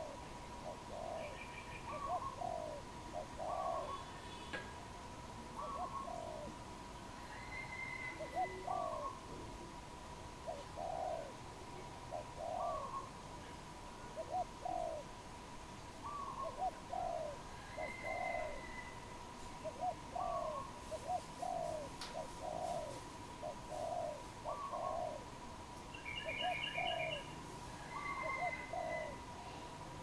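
Spotted dove cooing: a soft phrase of two or three low coos repeated about every two seconds. Faint higher chirps of other birds come now and then.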